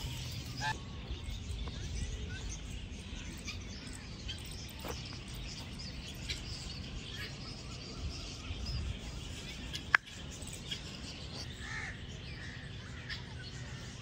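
Outdoor bird ambience: scattered short chirps and calls from birds over a low steady background. A single sharp click about ten seconds in is the loudest sound.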